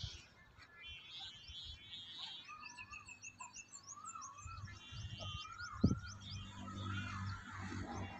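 Faint wavering hum of a Thai chula kite's bow hummer high overhead, its pitch swinging slowly up and down as the wind works it, with small birds chirping over it. One short thump a little before six seconds in.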